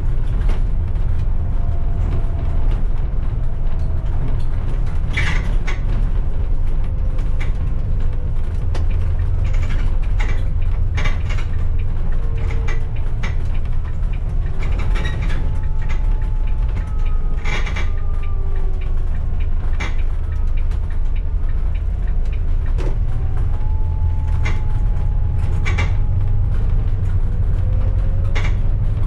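Bus driving along a city street, heard from inside: a steady low engine and road rumble with frequent short rattles and clicks, and a faint whine that rises and falls with the bus's speed.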